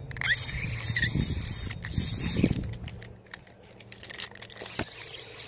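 Irregular scraping and rustling with scattered sharp clicks as a hooked spotted bass is reeled in and landed by hand from the bank: rod, reel and handling noise, quieter around the middle.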